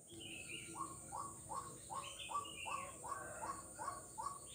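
A frog calling over and over: short, downward-sliding notes at about two and a half a second, with a few higher chirping calls between them. A steady high-pitched drone runs behind.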